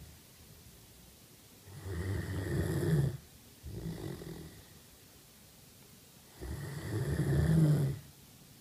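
Great Dane snoring in her sleep: two loud snores about five seconds apart, each lasting a second and a half and ending abruptly, each followed by a shorter, softer snore.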